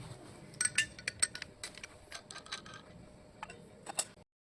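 Small hard objects clinking and clicking against each other, a quick irregular run of sharp clinks. The sound cuts off abruptly near the end.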